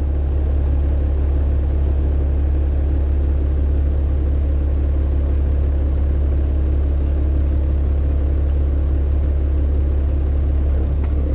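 Heavy diesel engines of logging machinery running steadily: a loud, constant deep hum with no breaks or revving.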